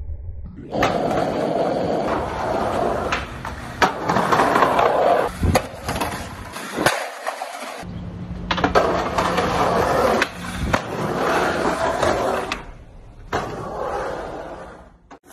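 Skateboard wheels rolling over street pavement, a loud steady rumble, broken several times by the sharp clack of the board popping and landing.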